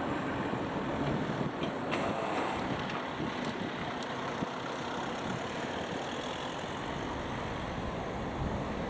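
Steady wind noise on the microphone over a low road-traffic sound as a car drives up to and over the level crossing. The passing train's rumble has already died away.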